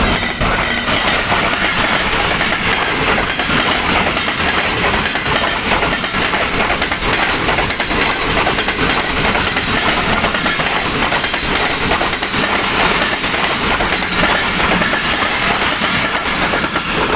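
Express passenger train coaches passing close by at speed: a loud, steady rush of wheel and rail noise with a dense clickety-clack of wheels over the rail joints.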